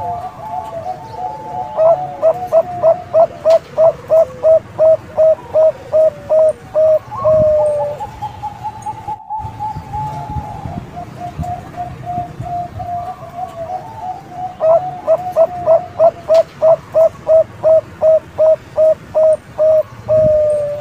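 Young Bangkok-type zebra dove (perkutut) cooing. Two long runs of rapid staccato coo notes, about four a second, each lasting some six seconds, with a softer rolling coo in between.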